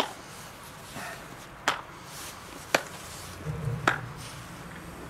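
Four sharp plastic clicks, about a second apart, as the snap-lock clips on the lid of a plastic food container are flipped open. A low rumble comes in about three and a half seconds in.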